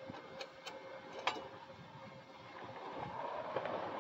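A few faint clicks and knocks as a MIG welding gun is set against a steel frame gusset, then a rising rush of noise near the end.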